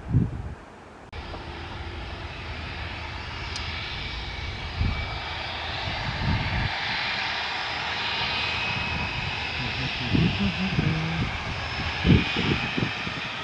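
Airliner engines running as a plane passes: a steady roar with a high whine that drifts slowly in pitch. It starts suddenly about a second in, and a few low thumps break through.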